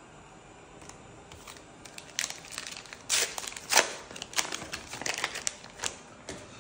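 Foil booster-pack wrapper crinkling as it is handled and opened: a quick run of sharp, crisp crackles starting about two seconds in, loudest in the middle and dying away near the end.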